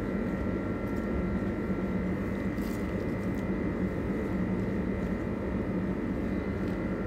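Steady machine drone with a faint high whine over it, unchanging throughout, and a few faint soft rustles as salad leaves are handled.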